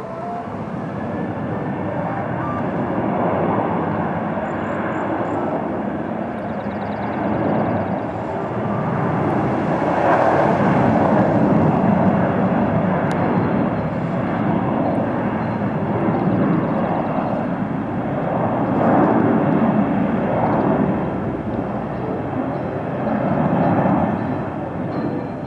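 Jet engines of a Norwegian Air Shuttle Boeing 737 at high power on its takeoff roll, a loud rumble that builds over the first few seconds and then swells and eases in slow waves.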